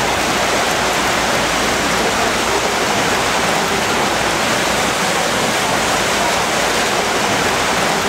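Floodwater rushing along a street and around a stranded car: a loud, steady rushing noise.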